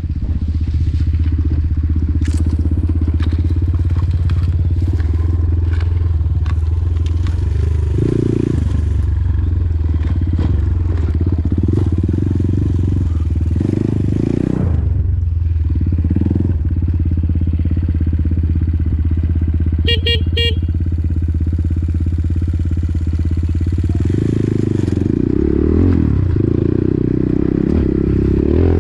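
Enduro dirt bike engine running under load on a steep hill climb, mostly steady, with the throttle dropping off and picking up again a few times.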